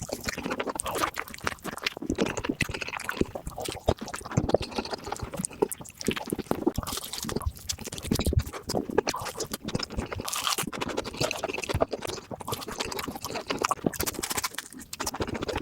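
Close-miked chewing of a burger: a dense, continuous run of small mouth clicks and crackles with irregular louder bites.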